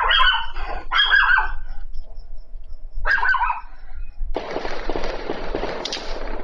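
Gunshots picked up by a security camera's microphone: three sharp reports, the first two about a second apart and a third two seconds later, each trailing off in echo, followed by a stretch of rough noise lasting under two seconds. They are firearm discharges, not fireworks.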